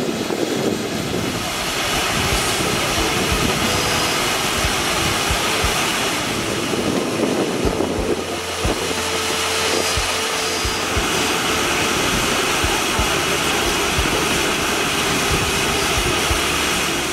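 Volcanic fumarole venting steam through a sulfur-crusted vent, a steady rushing hiss.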